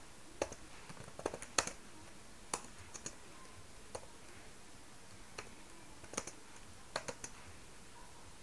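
Faint, irregular keystrokes on a computer keyboard: single clicks and short runs of two or three, with pauses of up to a second or more between them.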